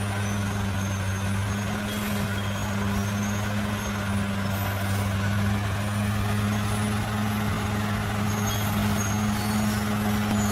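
Bulldozer's diesel engine running steadily under load, a constant low drone that holds the same pitch throughout.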